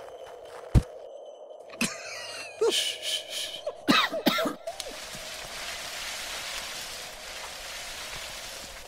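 Cartoon sound effects: a sharp knock, then a run of short squeaky rising-and-falling pitch glides, then a steady hiss.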